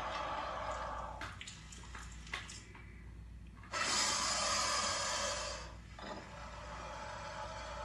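Rushing, splashing water noise, with a sudden louder surge about four seconds in that lasts about two seconds before falling back.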